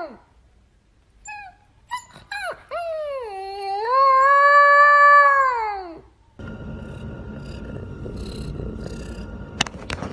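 A dog howling: a few short yelps, then one long howl that dips, rises, holds and falls away about six seconds in. After that comes a steady hiss, with a few sharp clicks near the end.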